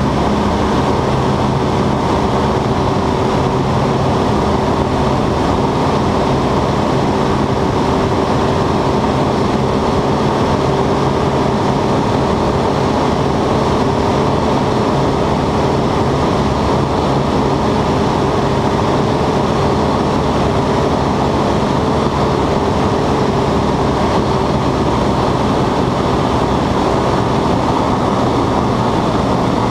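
Westland Lysander's nine-cylinder radial engine and propeller running steadily at high power during takeoff and climb-out, heard from inside the cockpit.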